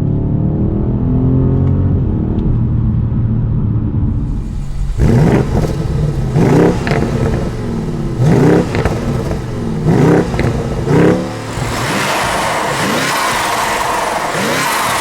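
BMW M550i's 4.4-litre twin-turbo V8 through an AC Schnitzer exhaust, running steadily at first. Its revs then climb sharply and drop back about five times in quick succession. Near the end a steady rushing noise takes over.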